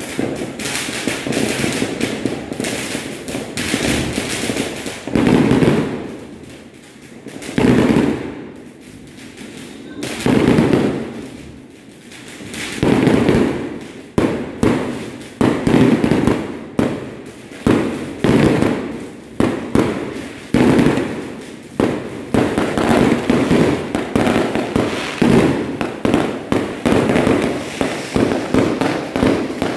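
Firecrackers and fireworks going off: steady crackling at first, then four big bangs a couple of seconds apart, each dying away over a second or so, and from about halfway a fast, irregular string of sharp cracks and bangs.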